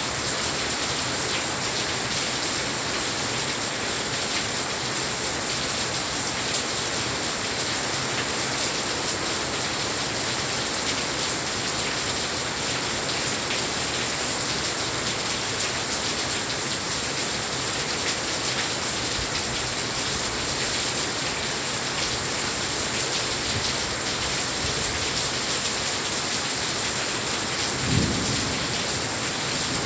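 Heavy rain pouring steadily, an even hiss of drops hitting a glass balcony railing and hard surfaces. A brief low thump near the end.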